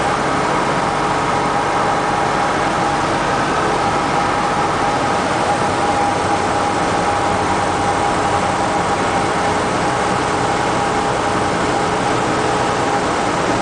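Steady drone of a 1964 Cessna 172E's Continental O-300 six-cylinder engine and propeller, heard inside the cockpit with wind noise over the airframe, during final approach to landing.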